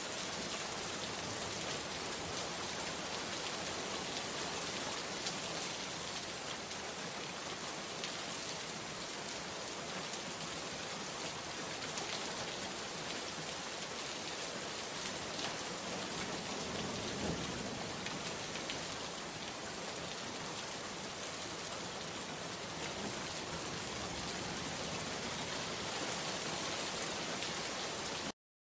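Steady rain falling, a dense even hiss with scattered drop ticks. The sound cuts out completely for a fraction of a second near the end.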